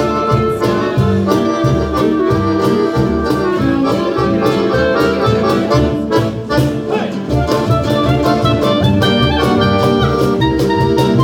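Live acoustic street band playing: an accordion holds the melody over a plucked double bass line, a strummed acoustic guitar and hand drums (cajón and goblet drum) keeping a steady beat.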